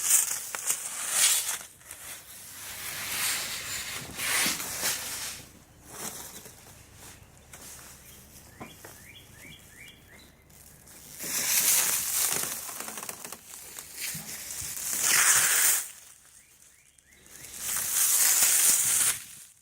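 Plastic stretch wrap on a new tool chest rustling and crinkling as it is handled, in repeated bursts of one to three seconds with quieter gaps between.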